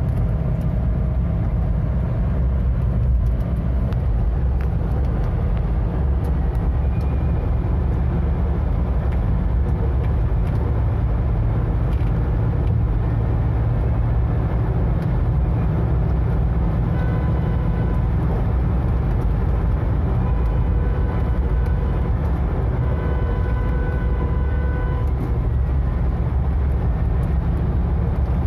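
Mahindra Bolero's cabin at highway cruising speed of about 100 km/h: a steady low drone of engine and road noise that holds even throughout.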